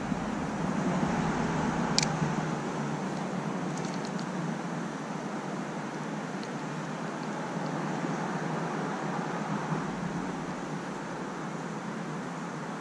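Steady rushing outdoor background noise with no speech, broken by one sharp click about two seconds in and a few faint ticks a couple of seconds later.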